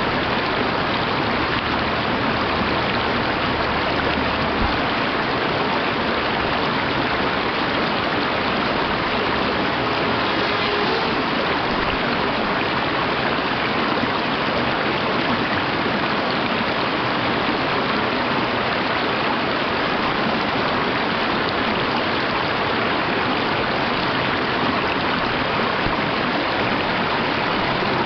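Mountain stream running over rocks and small cascades: a steady, unbroken rush of water.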